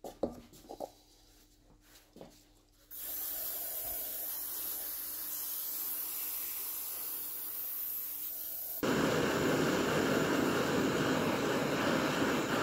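A few light knocks, then an aerosol spray can hissing steadily for about six seconds onto a rusty bench vice's screw. It cuts abruptly to the steady noise of a gas blowtorch flame, louder than the spray.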